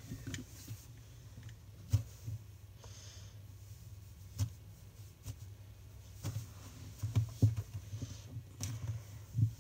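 Hands handling slime and squishy toys: irregular soft thumps and sharper clicks, a few at a time, loudest in a cluster about seven seconds in and again just before the end.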